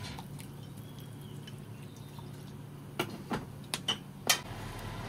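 Fish sauce poured from a bottle into a pot of simmering chicken soup, with a few sharp drips and clinks about three to four and a half seconds in, over a steady low hum.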